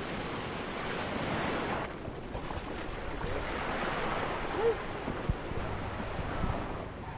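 Wind buffeting the microphone over sea water lapping and splashing. A thin, steady high-pitched whine runs through it and cuts off suddenly about five and a half seconds in.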